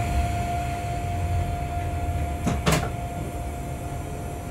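Inside a locomotive cab: a steady mechanical hum and rumble, with a thin steady tone that fades out about a second in. Two sharp clicks come close together about two and a half seconds in, like a latch or switch being worked.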